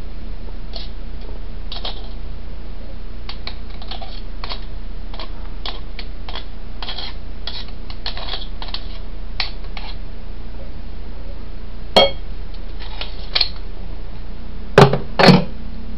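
Kitchen dishes and utensils handled: scattered light clinks and taps, a couple of sharper clicks, and two louder knocks near the end, over a steady low hum.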